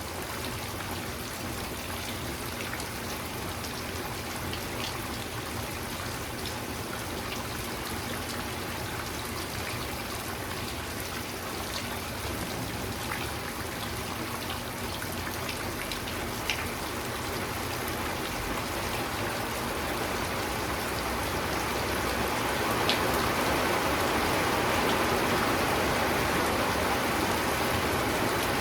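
Steady rainfall with scattered close drop ticks, the rain growing heavier over the last ten seconds or so.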